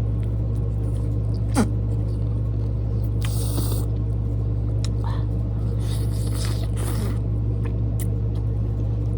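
People biting into and chewing runny-yolk eggs, with a few short wet mouth noises about a third of the way in and again past the middle, over a steady low hum.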